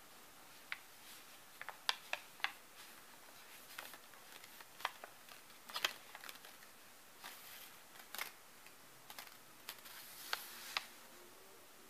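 Faint, irregular light clicks and crinkles of a small aluminium-foil ball and a sheet of paper being moved about on a quilt.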